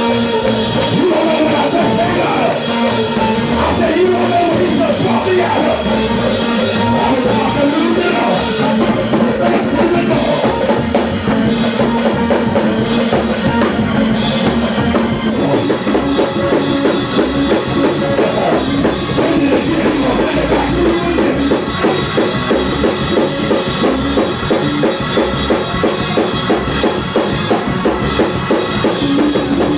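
Church praise-break music: a live drum kit playing a fast, driving beat with instruments holding sustained notes, loud and steady throughout.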